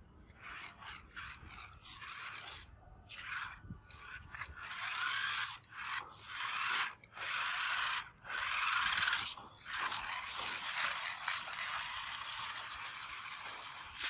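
Toy RC rock crawler driving in starts and stops: its small electric motor and gears run in bursts of one to a few seconds, with short pauses between, loudest in the middle.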